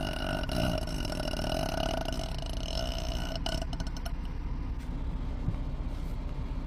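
A woman belching at length: one long, unbroken burp that turns rattly about three and a half seconds in.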